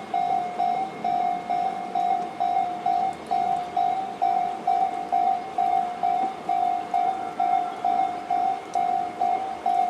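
Japanese railway level-crossing alarm ringing Tobu Railway's electronic 'C' tone, a loud ding repeated evenly about twice a second: the warning that the crossing is closed for an approaching train.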